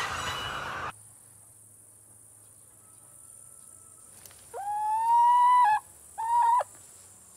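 Hybrid cockerel crowing thinly: one long held note that rises slightly, then a short second note, over a steady high-pitched chirring of crickets. In the first second, the din of a crowded cage hen house cuts off.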